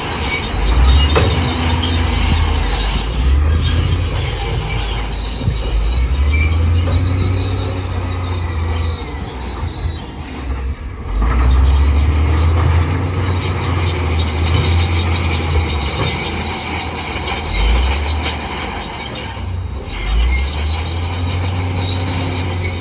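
Crawler bulldozer at work: its diesel engine runs with the load rising and easing every few seconds, under a thin high squeal from the steel tracks.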